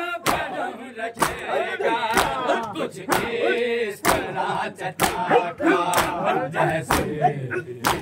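A group of mourners chants a noha (Shia lament) in chorus. Sharp hand strikes of matam on the chest keep time about once a second.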